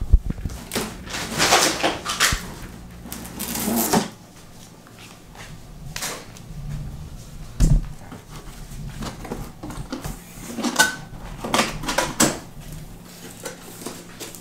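Large cardboard box being opened by hand: cardboard flaps and lid pulled, scraping and rubbing in irregular bursts, with a couple of dull thumps, one at the start and one about halfway through.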